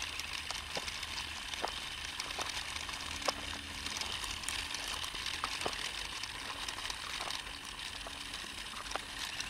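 Small electric motor of a toy RC truck whirring faintly as its tyres roll over loose gravel, a steady hiss with scattered crunching clicks.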